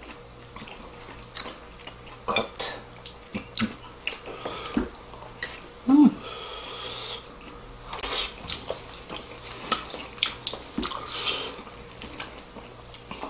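People eating with chopsticks: chewing and mouth sounds, with chopsticks clicking against ceramic bowls and plates, and one louder dull knock about six seconds in.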